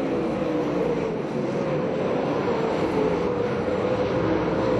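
Dirt late model stock cars racing, their V8 engines running in a steady drone with a slightly wavering engine pitch.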